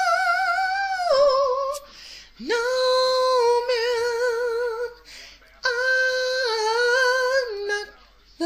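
A man singing in a high falsetto without words, holding three long notes with a wide vibrato and short breaks between them. The first note drops in pitch a little over a second in.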